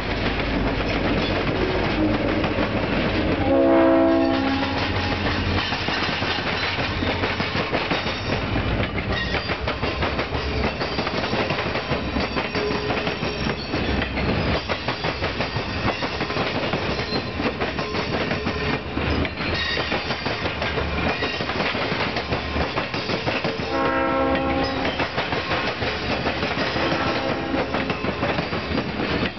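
Excursion train passenger coaches rolling past at speed, with steady wheel-and-rail noise and clicking over the rail joints. The diesel locomotive ahead sounds its horn twice: a chord about four seconds in, the loudest moment, and another about twenty-four seconds in.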